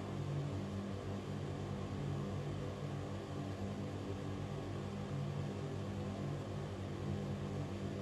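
Ventilation fan running steadily: a constant low motor hum under an even rush of air, with no change in speed.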